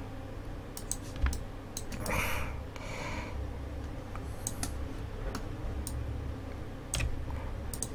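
Scattered, irregular clicks of a computer mouse and keyboard over a low steady hum.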